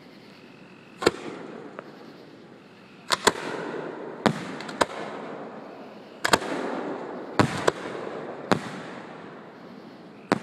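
Aerial fireworks shells bursting overhead: about ten sharp bangs, several in quick pairs, each trailing off into a rolling rumble.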